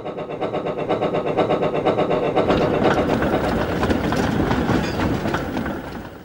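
Train sound effect: a fast, regular running beat that builds over the first second, holds steady, and fades out near the end.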